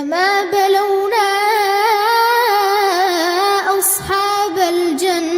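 A child reciting the Quran in a melodic tajweed style, drawing one long ornamented note out with small wavering turns of pitch, with a brief breathy hiss about four seconds in.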